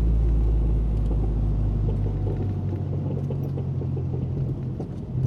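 Cabin sound of a 2012 Mazdaspeed3 driving slowly: low road and engine rumble with a scatter of small clicks and clunks from the left front. The owner suspects a worn left front axle; forum users blame the front end link bushings.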